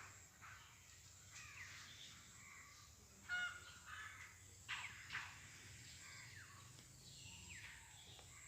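Faint bird calls: several short calls and falling chirps a second or so apart, the loudest about three seconds in.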